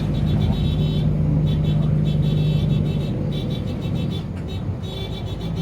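Tour vehicle's engine running steadily, heard from inside the cabin as a low hum, with a high whine that comes and goes.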